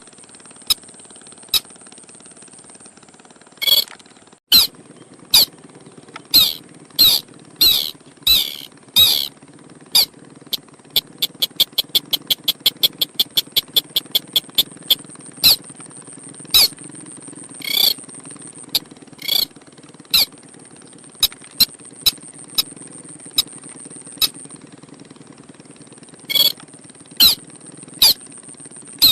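Lure-call recording of a sintar, a paddy-field crake, calling in sharp, squeaky single notes repeated about once a second. About a third of the way in, the notes run together into a rapid trill of quick notes lasting several seconds, then return to single notes.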